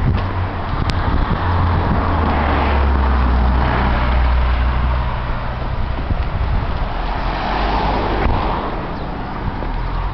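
Road traffic on a city street: a vehicle's low rumble swells and passes over the first half, and another vehicle passes near the end.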